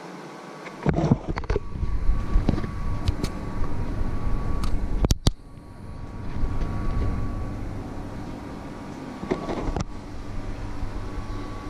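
Handling noise from an action camera being picked up and moved by hand: low rumbling and rubbing with scattered knocks and clicks, starting about a second in, with two sharp clicks about five seconds in.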